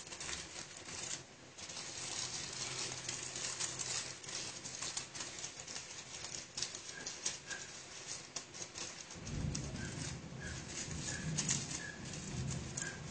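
Aluminium foil crinkling and crackling as it is pressed loosely over a cake pan, a run of quick irregular crackles. About nine seconds in a low, pulsing sound joins it.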